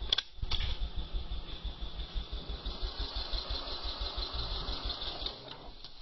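A small engine chugging in a steady, even low rhythm that stops about five and a half seconds in. Two sharp snaps come right at the start, about half a second apart, as the slingshot is shot.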